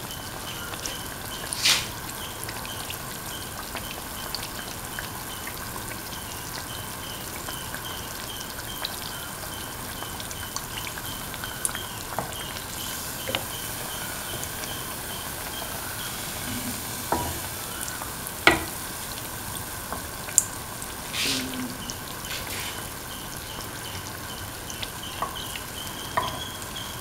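Semolina pancake batter shallow-frying in hot oil in a pan: a steady sizzle as the pancake browns. A few sharp clicks and taps stand out now and then, and a faint high ticking repeats a couple of times a second.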